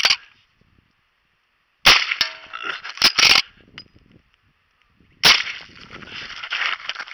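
Two shots from a .45 Colt lever-action rifle (a reproduction Winchester Model 1873), about three and a half seconds apart. The first is followed by a short ringing note, typical of a hit on a steel target, and then by loud metallic clacks of the lever being worked to chamber the next round.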